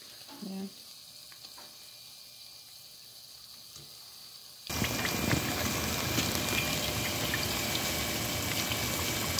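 Hot oil sizzling with small crackles as balls of oliebollen batter deep-fry in a pot. It is faint at first, then turns suddenly louder about halfway through.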